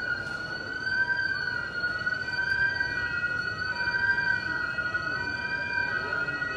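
A continuous high-pitched alarm-like tone, its pitch wavering slowly and slightly without breaking, over steady street noise.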